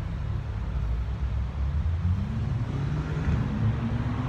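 Street traffic from below: a steady low rumble, with one vehicle's engine rising in pitch as it pulls away over the second half.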